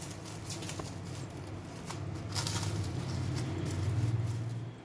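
Plastic cling film crinkling and rustling in irregular crackles as hands tuck and smooth it over a marinated mutton leg in a steel dish, over a steady low hum that stops near the end.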